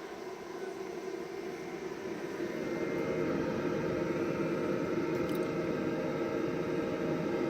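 Green Mountain Grills Davy Crockett pellet grill running its fan during start-up, a steady whirring hum that grows a little louder over the first few seconds, while the new igniter heats the pellets before they catch.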